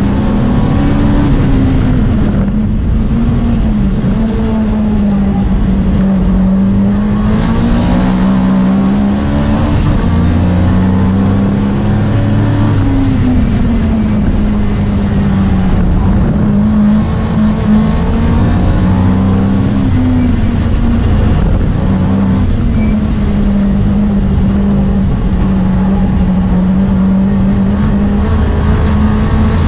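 Opel Kadett GT/E Group 4 race car's four-cylinder engine heard from inside the stripped cabin at racing pace. The revs repeatedly climb and fall through the gears and corners, with short breaks about two and a half, sixteen and twenty-two seconds in.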